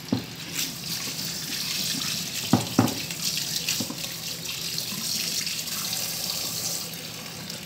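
Kitchen faucet running into a metal pot of chopped onion, tomato and sausage while the pieces are rinsed and stirred by hand under the stream. Two sharp knocks sound about two and a half seconds in.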